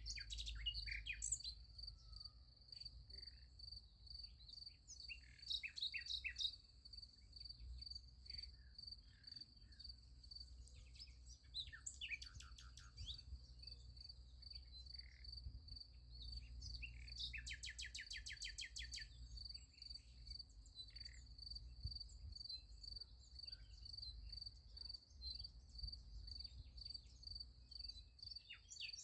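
Crickets chirping in a steady, pulsing trill, with scattered bird calls and chirps over it, among them a rapid trill a little past the middle.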